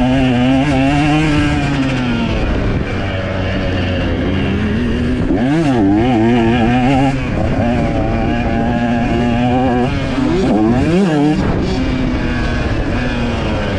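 KTM 125 single-cylinder two-stroke dirt bike engine revving under way. Its pitch climbs and drops with the throttle and gear changes, with quick sharp rises and falls about five and a half seconds in and again near eleven seconds.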